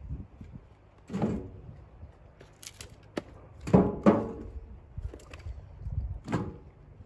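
Split firewood logs being thrown into a vehicle, knocking against each other with several hollow wooden clonks, two of them in quick succession midway, and a few sharper clicks.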